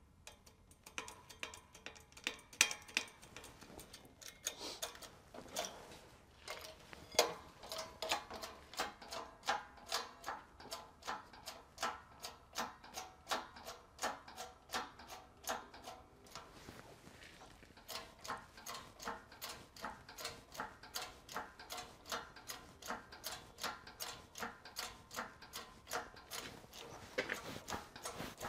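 20-ton hydraulic bottle jack on a shop press being pumped by its handle: a steady run of clicks, about two to three a second, with a short pause about two-thirds of the way through. The press is driving a worn outer bearing race out of a truck wheel hub.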